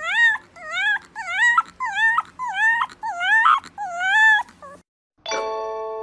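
A fluffy white puppy whining and howling in a quick string of short cries, about two a second, each dipping and then rising in pitch. The cries stop near the end, and ringing chime-like music notes start.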